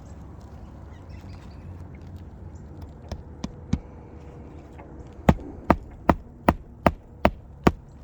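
Hammer driving a roofing nail into a replacement asphalt shingle: three light taps to set the nail, then seven quick, evenly spaced blows about 0.4 s apart.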